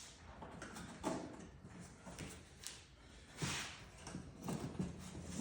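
Light knocks and scraping as CatCubby wall panels are handled and pins are pushed into place: a few separate clacks, the loudest about a second in and again about three and a half seconds in.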